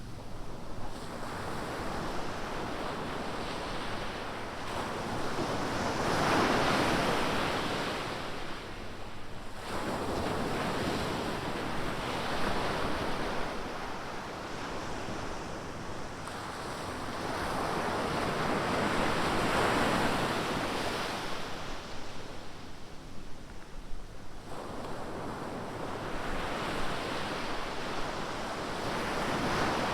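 Ocean surf: waves breaking and washing up the beach, the rush of water swelling and fading about four times.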